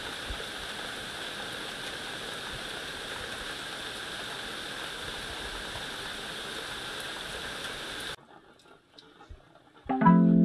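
Steady rain falling, which cuts off abruptly about eight seconds in, leaving near quiet with a few faint ticks. Near the end, music starts with a held chord.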